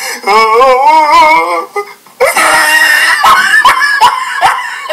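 A voice singing a held, wavering note for about a second and a half. After a brief break there is a loud outburst, then a run of short, sharp vocal sounds, each falling in pitch.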